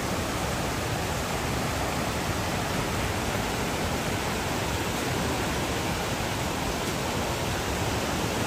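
Johnston Creek rushing over whitewater rapids: a steady, unbroken rush of fast-flowing water.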